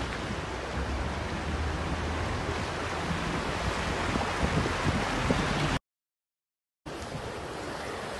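Floodwater rushing and churning against moving vehicles, with a low rumble underneath. The sound cuts out completely for about a second, then a quieter, steady rush of water and wind returns.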